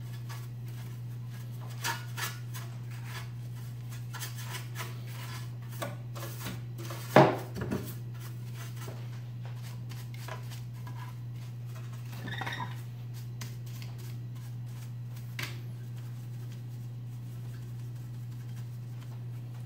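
Paintbrush bristles brushing and scraping over the metal chassis and circuit boards inside an open CRT monitor while dusting it: scattered light scratches and taps, with one louder knock about seven seconds in, over a steady low hum.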